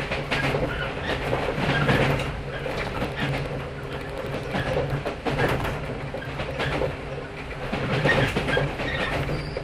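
Inside a JR 115 series electric multiple unit motor car (MoHa 115-362) running into a station: wheels clicking and knocking irregularly over rail joints and points, over a steady low hum.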